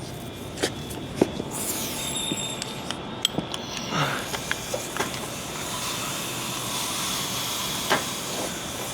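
Scattered metallic clicks and knocks of hand tools on body mount hardware under a truck as the core-support mount nut and lower cup go on and are tightened, over a steady hiss.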